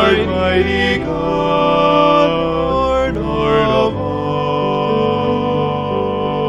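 A man singing a slow hymn solo in long held notes over a sustained instrumental accompaniment.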